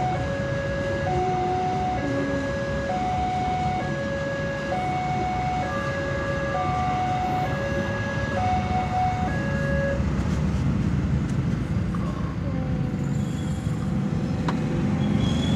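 Railway level-crossing warning speaker sounding an alternating two-tone electronic alarm, switching between the two tones about once a second, over the low rumble of a passing passenger train, heard from inside a car. The alarm stops about nine and a half seconds in.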